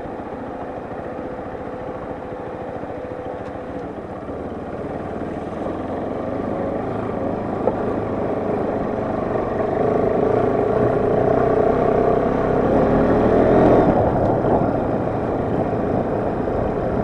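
Motorcycle engine running as the bike is ridden, growing louder and higher in note from about halfway through and easing slightly near the end.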